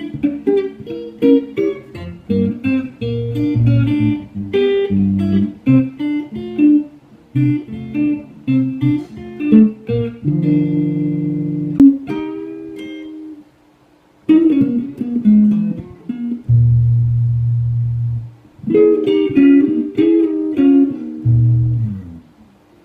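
Custom-built solid-body electric guitar played fingerstyle: a picked melody over bass notes, some bass notes held and left ringing, with a short break just past halfway.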